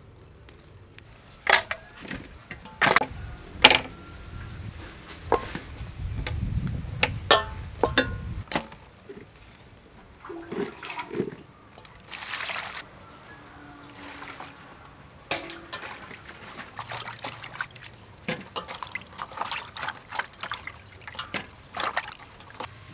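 Chillies and spring onions being washed by hand in water in an aluminium basin: a few sharp knocks on the metal in the first seconds, a rush of water for about three seconds, then irregular splashing and sloshing as the hands work the vegetables.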